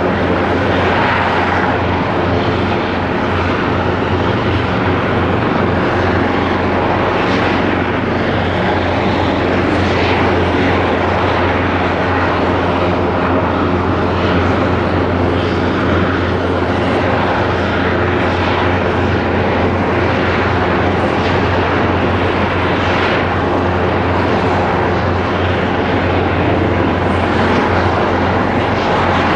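Airbus EC225LP Super Puma helicopter running: the twin turbine engines and rotor make a loud, steady, even noise with a deep hum underneath.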